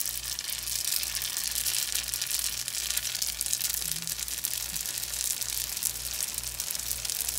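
Egg rolls frying in hot oil in a skillet: steady sizzling with many small crackling pops.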